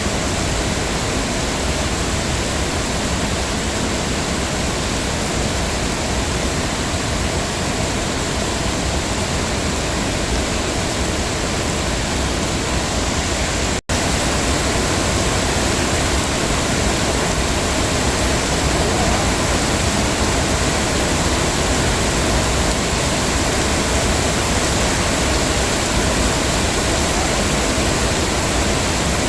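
Heavy rain falling, a dense, steady hiss. About halfway through it cuts out for a split second and resumes slightly louder.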